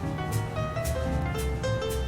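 Background music: a light keyboard tune with a steady beat.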